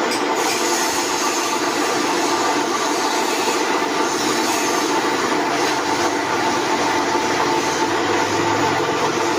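Floor-standing pillar drill press running steadily with a constant motor and gear hum while its bit is fed down into a flat workpiece to drill a hole.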